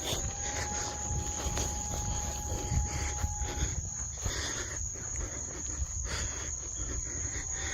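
Night insects, crickets, trilling as one steady high continuous note. Underneath runs a low rumble with scattered faint knocks.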